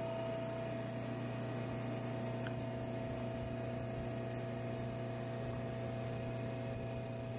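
Home-built micro-hydro plant running steadily: a Marathon 30 kVA three-phase generator direct-driven at 1800 RPM by Pelton and Turgo turbines, giving a constant hum over an even rush of noise. A faint tick about two and a half seconds in.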